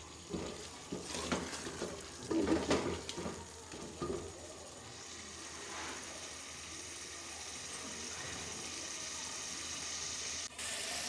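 Chicken and capsicum curry sizzling as it is fried down in an aluminium pressure cooker, with a wooden spoon scraping and knocking against the pot during the first four seconds or so. After that the sizzle carries on as a steady hiss that slowly grows louder.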